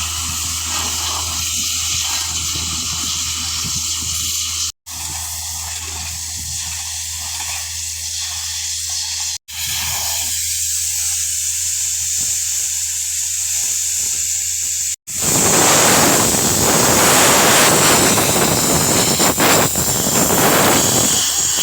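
Road-works machinery: an engine running steadily under a hissing noise. After a sharp cut about 15 s in, a louder, even rushing hiss takes over.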